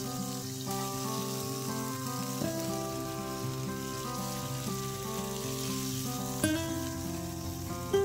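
Beef steak sizzling in a hot nonstick frying pan as it is turned with tongs, under background music. Two short knocks, about six and a half seconds in and near the end, as the tongs and steak come off the pan.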